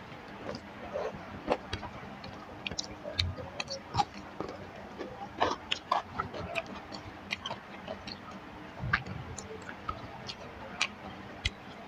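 Close-up eating sounds: irregular wet mouth clicks and chewing, with a few soft low thumps.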